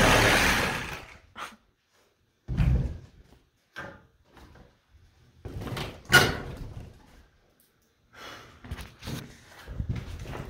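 A power tool cutting into the roof boards, stopping about a second in. Then a series of dull thumps and knocks as the cut plywood roof panel is pushed and knocked loose from below.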